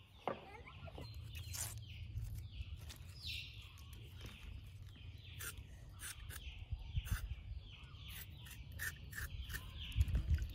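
Small birds chirping over and over in the background, short falling chirps several times a second, over a low rumble with scattered light clicks.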